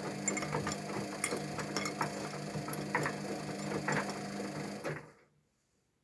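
Luxor WM 1042 front-loading washing machine tumbling its drum in the wash phase of a synthetics 40 °C programme: a steady motor hum with laundry and water sloshing and light clicks and knocks. The motor stops about five seconds in for the pause between tumbles.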